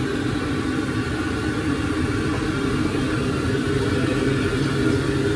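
A machine running with a steady low hum.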